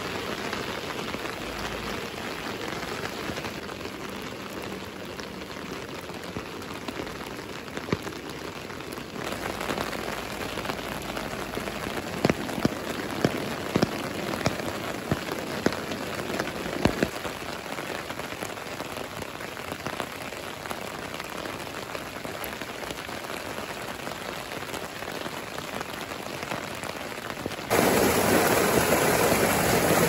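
Steady rain falling, with several sharp drips about halfway through. Near the end a louder rush of water cuts in: muddy rainwater gushing from a drainpipe into a concrete channel.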